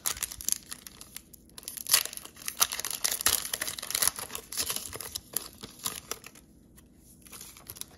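Shiny wrapper of an Upper Deck hockey card pack being torn open and crinkled by hand, a dense crackling for about the first six seconds, then quieter, sparser crinkles as the cards are slid out.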